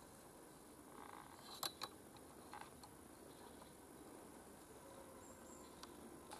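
Near silence: faint woodland ambience, broken by two sharp ticks close together about a second and a half in and a few fainter ticks later.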